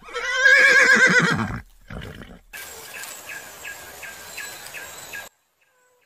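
Horse whinnying: one long neigh lasting about a second and a half, wavering quickly in pitch and falling away at the end.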